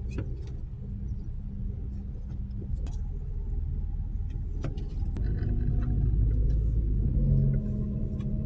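Heavy vehicle engine running with a low rumble, growing louder about five seconds in, with a few sharp clicks and knocks over it.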